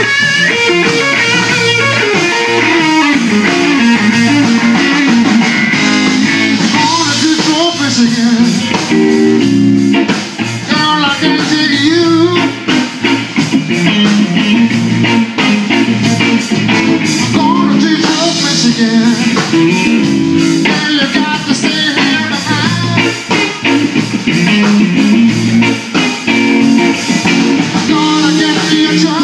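Live blues band playing: electric guitar with bent, wavering notes over electric bass and a drum kit.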